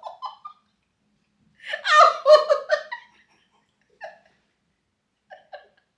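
A person laughing hard in one burst about a second and a half in, followed by a few short faint sounds.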